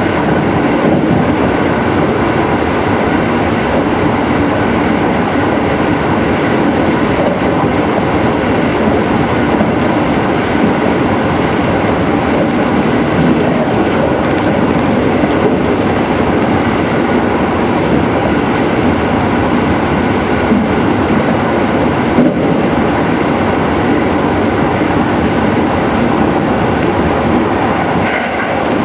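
JR Central 373-series electric train running at speed through a long tunnel, heard from inside the car: a loud, steady rumble of wheels on rails with faint high ticking about twice a second.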